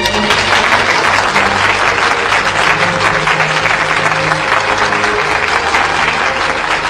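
A large audience in a hall applauding steadily, with soft music underneath.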